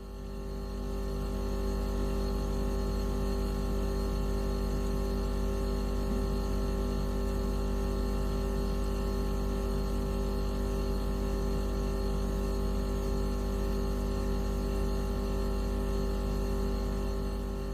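Steady synthetic electronic drone made of many fixed tones, heaviest in the deep bass with a strong mid tone, sold as a mosquito-repellent sound. It fades in over the first couple of seconds and fades out near the end.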